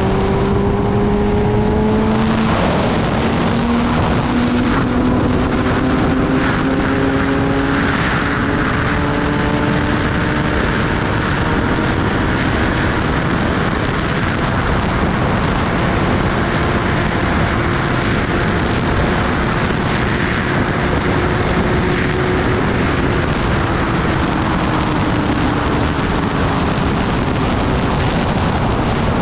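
Kawasaki Ninja ZX-10R's inline-four engine running under way, its pitch climbing gradually through the first several seconds, then holding and dropping near the end, with steady wind rush on the microphone.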